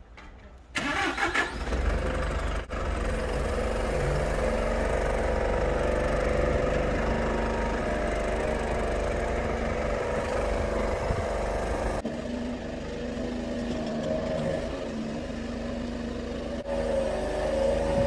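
Truck-mounted aerial lift (sky truck) running as its hydraulic boom and work basket are lowered and retracted: a steady engine-driven hum with a low rumble that comes in abruptly about a second in.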